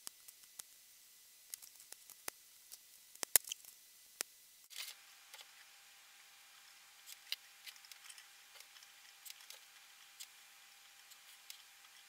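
Flush side cutters snipping the excess component leads off a small hand-made circuit board: a few sharp clicks, the loudest about three and a half seconds in. From about five seconds in come fainter scattered ticks while the joints are soldered with an iron and solder wire.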